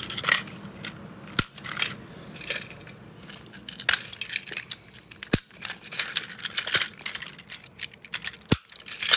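Plastic toy E5 series Shinkansen trains clicking and knocking as they are handled and coupled together: an irregular string of small clacks with a few sharper knocks.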